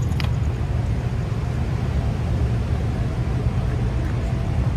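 A steady low rumble, with one faint click shortly after the start.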